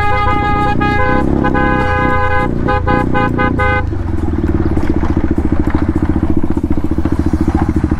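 A vehicle horn honks repeatedly, a longer blast and then a string of short toots, over the KTM Duke 390's single-cylinder engine. The horn stops about four seconds in, and the engine's rapid even pulsing runs on as the bike slows.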